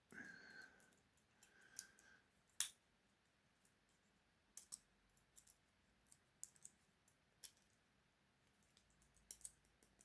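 Sparse small metallic clicks from lock-picking tools worked in a Master Lock lever padlock, with one sharper click about two and a half seconds in, against near silence.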